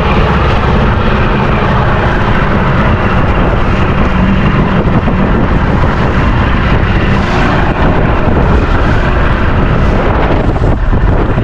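Fishing boat's engine running steadily under way, with strong wind buffeting the microphone.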